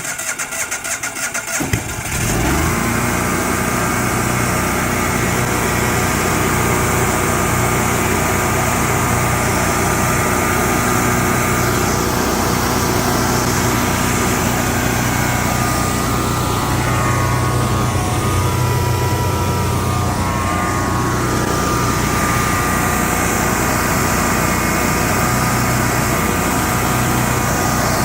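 Generac 12 kW Guardian standby generator engine cranking on its starter for about two seconds, then catching and running steadily on propane for the rest.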